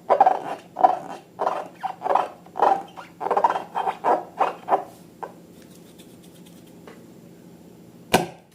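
Slime being squeezed and kneaded by hand, a squelch about twice a second, stopping about five seconds in; one sharp click near the end.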